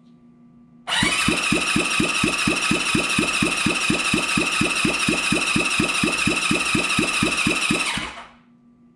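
1978 Honda CB550 four-cylinder engine turned over by its electric starter motor for about seven seconds during a compression test. The starter whines steadily and the engine chugs evenly, about four pulses a second. It starts about a second in and stops just before the end.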